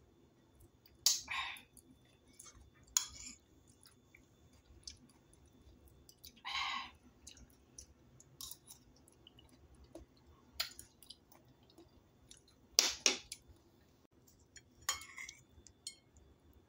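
Quiet eating sounds: a metal spoon clicking and scraping on a ceramic plate while silken tofu is scooped and chewed, with scattered light clicks and a few short louder bursts of mouth and spoon noise.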